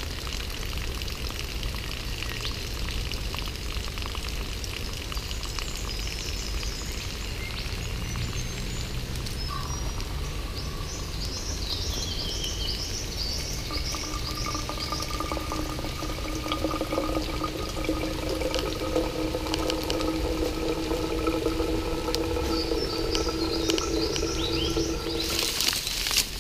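Filtered water trickling from a hanging canvas Millbank bag filter into a container below, with birds chirping now and then. A set of steady tones joins in about halfway through, and a louder hiss cuts in near the end.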